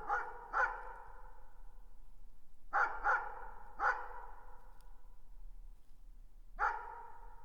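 A dog barking in the distance in short groups: two barks, then three about three seconds in, then a single bark near the end. Each bark leaves an echoing tail.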